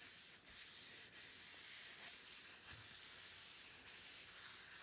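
Oil-soaked paper towel rubbed back and forth over the face of a hardwood cutting board, wiping mineral oil into the wood: a faint rubbing hiss that swells and dips with each stroke, about every half second.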